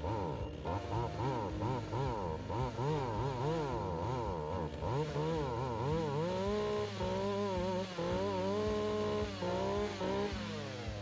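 Chainsaw running and cutting, its engine pitch rising and falling over and over, then holding high with brief dips in the second half.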